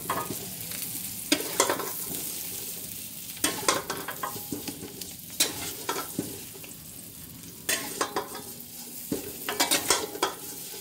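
Small boiled potatoes sizzling in butter in a steel frying pan. Several bursts of clinks and scrapes come as a spatula lifts the potatoes from the pan into a glass bowl.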